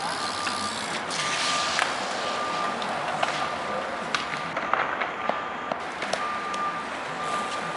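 A vehicle's reversing alarm beeping steadily, about once a second, over an even background hiss. Sharp clacks of skateboards on concrete come in now and then.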